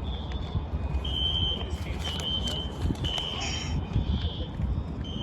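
Fire alarm sounding a high-pitched beep about once a second, over a steady low rumble.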